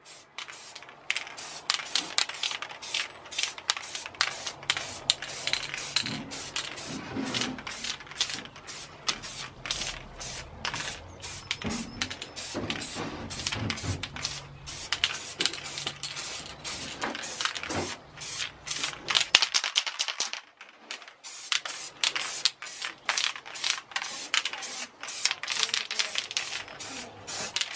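Simoniz acrylic grey primer aerosol can spraying in many short hisses, laying a coat of primer, with a brief pause about two-thirds of the way through.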